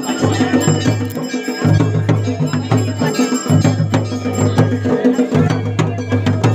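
Loud music with a heavy, repeating bass line and sharp percussion hits, as played for a dancing crowd.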